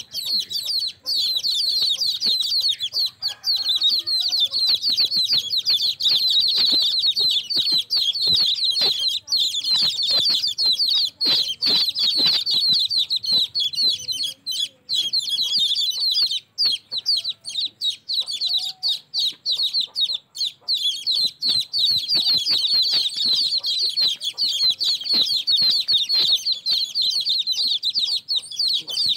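A flock of baby chicks peeping continuously in a dense chorus of rapid, high-pitched chirps, with scattered sharp clicks mixed in.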